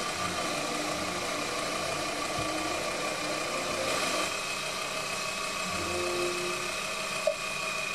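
Proxxon PD 250/e mini lathe running with a steady motor whine, its spindle turning brass rod under the cutting tool. One short click near the end.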